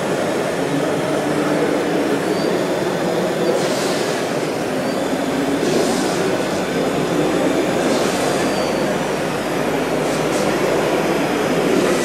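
Hydraulic system of a 1:8 scale radio-controlled Cat D250E articulated dump truck running steadily as the tipper body lowers after dumping, with short hisses about every two seconds.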